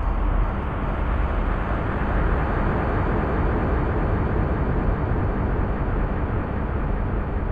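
Dark ambient drone music: a dense, steady wash of noise without a clear pitch, strongest in the deep bass, with a hiss reaching up into the upper mids and no beat or melody.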